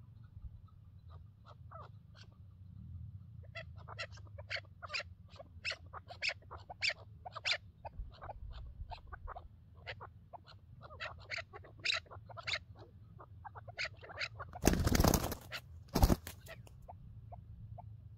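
Chukar partridges calling: a long run of short, sharp chuck notes that comes thick and fast through the middle, then thins out. Near the end two loud bursts of noise break in, the first lasting nearly a second and the second brief.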